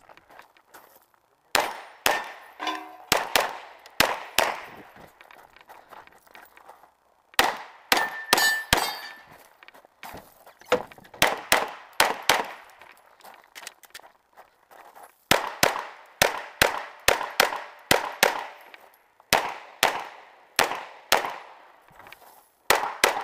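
Glock 17L 9mm pistol firing a USPSA stage: sharp shots in quick pairs and fast strings, with pauses of a second or more between groups as the shooter moves and reloads.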